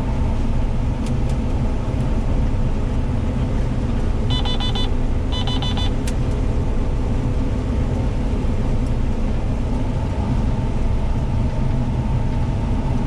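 Combine harvester running steadily under load while cutting soybeans, a constant low drone. Two short runs of rapid electronic beeping sound about four and five seconds in.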